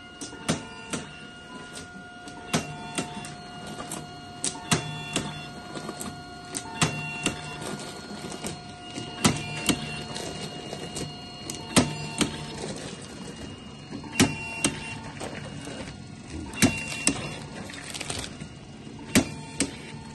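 Automatic bag labeller with a ribbon print head running: a steady motor whine, with a sharp clack about every two and a half seconds as each bag is fed through and printed, and lighter clicks in between.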